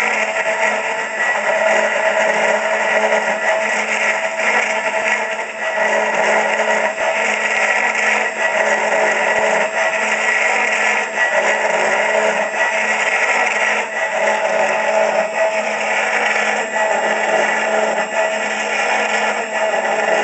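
CNC router spindle running with an end mill cutting a wooden cylinder as the rotary fourth axis turns it: a steady whine over a continuous cutting noise.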